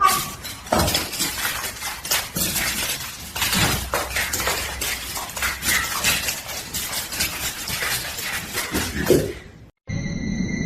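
Busy, irregular clattering and clinking of hard objects, many knocks overlapping, like dishes or glass being jostled. It cuts off suddenly near the end, and a few steady electronic tones begin.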